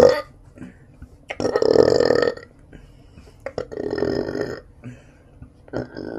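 A person burping repeatedly: three long burps about two seconds apart, the first about a second and a half in and the loudest, the third starting near the end.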